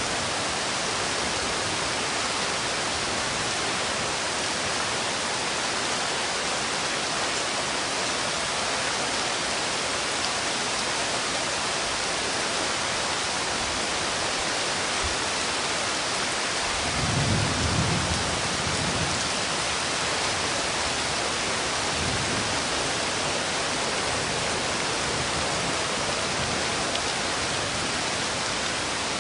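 Steady, even rain hiss, with a brief low rumble a little past halfway and a fainter one a few seconds later.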